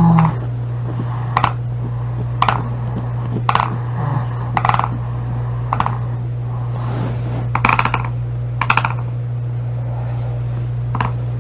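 A steady low hum with a short, rattling click about once a second, pausing for a couple of seconds near the end.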